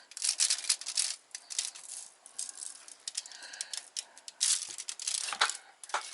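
A metal fork clinking and scraping in a dish of sugar as it is dipped between pressings of peanut butter cookie dough, in a quick run of rattling taps with the loudest strokes near the start and again about five seconds in.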